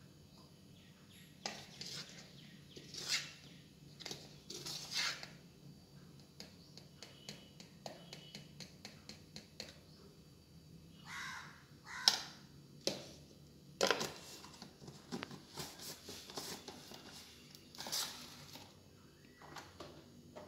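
Metal spoon scraping inside a jar and tapping on a drip coffee maker's filter basket as coffee powder is spooned in: a scattered series of scrapes and sharp clicks, with a few louder knocks in the second half.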